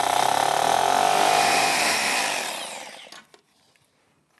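Hammer drill with a 6 mm masonry bit drilling down into the floor, running steadily and then winding down and stopping about three seconds in.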